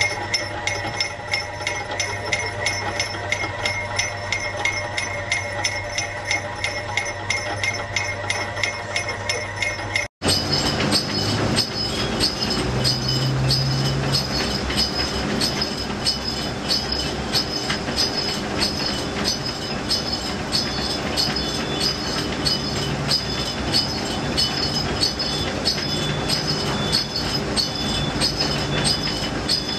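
Sugarcane juice machine running, its mechanism ticking in a steady rhythm and its bell tinkling along with it. The sound cuts out for an instant about ten seconds in, then the ticking and ringing carry on.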